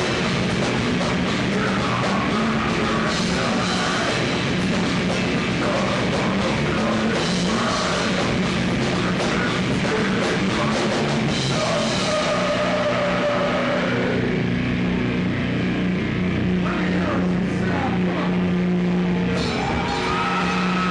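A heavy metal band playing live, with distorted electric guitars and a drum kit. About halfway through, the cymbals and drums drop away and the guitars hold ringing notes.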